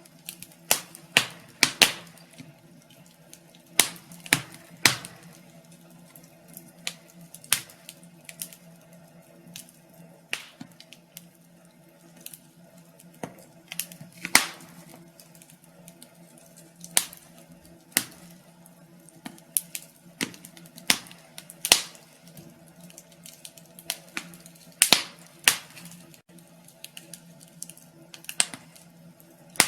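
Fireplace fire crackling, with irregular sharp pops and snaps, sometimes several a second and sometimes spaced out, over a faint low steady hum.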